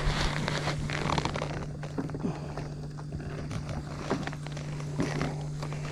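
Scattered light knocks and rustling from handling a hooked Florida gar, over a steady low hum.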